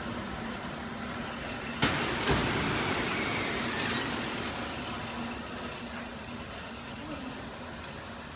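A 1 kg engine-compartment fire suppression unit goes off to put out an engine fire: a sharp crack about two seconds in, a second one half a second later, then a loud rushing hiss of extinguishing agent blasting out that slowly dies away.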